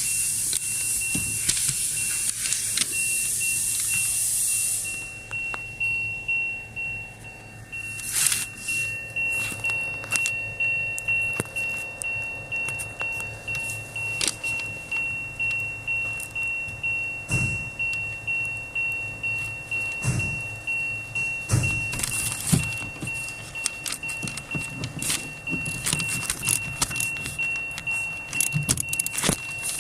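Hand ratchet wrench being worked on a nut, a rhythmic run of metallic ratchet clicks at about one and a half strokes a second. It begins after a few seconds of hissing, and a steady high-pitched tone runs underneath.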